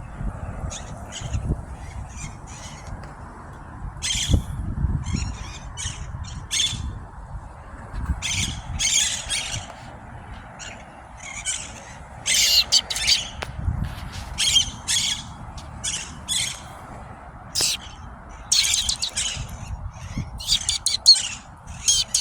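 Flock of parrots squawking: short, harsh calls in irregular clusters, some in quick runs, over a steady background hum.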